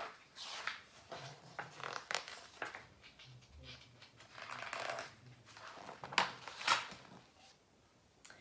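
Soft rustling and brushing of paper as a hardback picture book is handled, with louder rustles about six seconds in as a page is turned.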